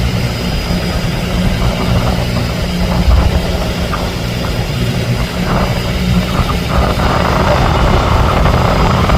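Fishing boat's engine running steadily with a low drone, joined about seven seconds in by a louder rushing hiss.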